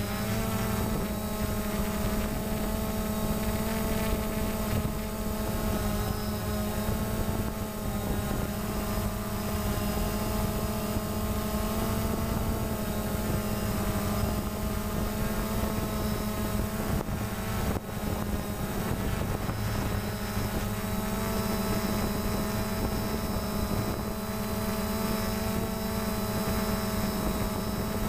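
DJI Phantom quadcopter's propellers buzzing steadily as it hovers and slowly descends, heard close up from a camera mounted on the drone itself, the pitch wavering slightly. A single short click comes about two-thirds of the way in.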